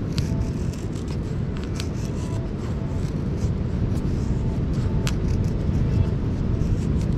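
A knife shaving curls off a split of firewood to make a feather stick: short scraping strokes about once a second, over a steady low rumble.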